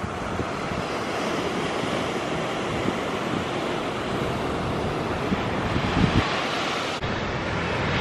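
Ocean surf breaking and washing up a sand beach, a steady rush, with wind buffeting the microphone in gusts, strongest about six seconds in.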